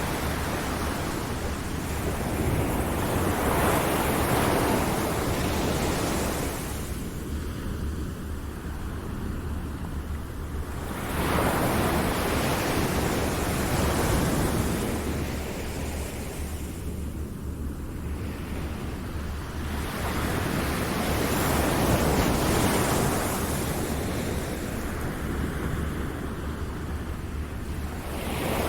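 Ocean surf washing in and drawing back in slow swells, each building and fading over several seconds, three in all.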